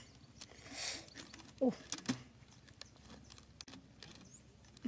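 Quiet rustling and light clicks of hands stretching and tying rubber bands around two wooden stakes. A brief, short vocal sound comes about a second and a half in.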